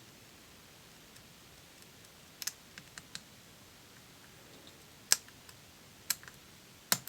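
Lock pick and tension tool clicking against the pins of a Robur safe deposit box lock during picking: a few scattered sharp clicks, the loudest three coming about five, six and seven seconds in.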